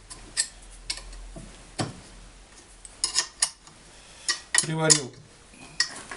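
Small metal parts of a homemade jigsaw machine clinking and knocking as they are handled, a handful of separate sharp clicks.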